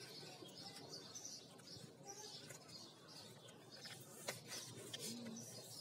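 Quiet: faint bird chirps in the background and soft rustling of a folded sheet of paper being pressed flat on a table, with a single light click about four seconds in.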